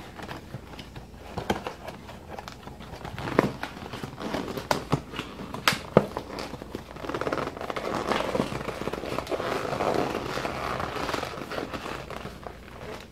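Plastic cereal bag crinkling and crackling as it is handled and folded shut. Scattered sharp clicks and knocks run through it, with denser crinkling from about halfway to near the end.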